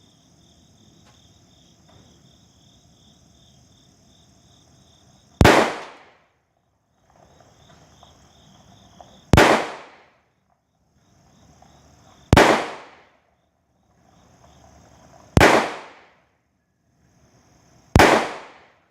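Taurus 85 .38 Special revolver fired five times, slow single shots about three to four seconds apart. Each is a sharp report with a short fading tail.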